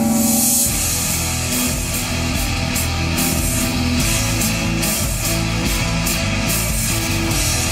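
Rock-style background music with electric guitar and a steady drum beat.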